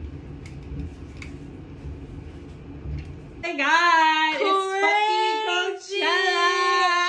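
A low steady rumble with a few faint ticks. About three and a half seconds in, it cuts abruptly to a high female voice singing long, sliding notes.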